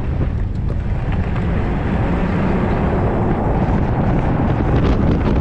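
Steady road and wind noise from a Tesla Cybertruck driving at speed: tyre roar and rushing air, with wind buffeting a microphone mounted low on the outside of the truck.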